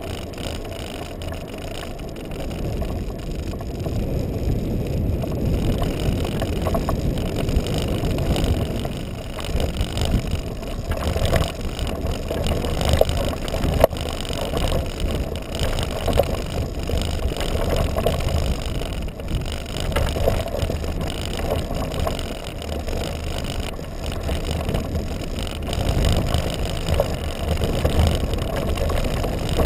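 Kite buggy rolling fast over a hard sand beach: a steady low rumble from its wide balloon tyres and frame, mixed with wind, swelling and easing as it goes.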